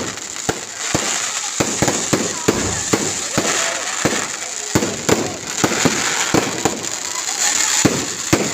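Many fireworks and firecrackers going off at once: irregular sharp bangs, several a second, over continuous crackling hiss.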